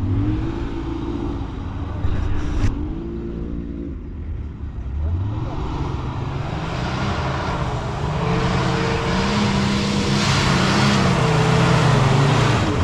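Off-road vehicle engine running, then revving up: its pitch climbs over a couple of seconds from about five seconds in and holds high under load, with a rising hiss alongside.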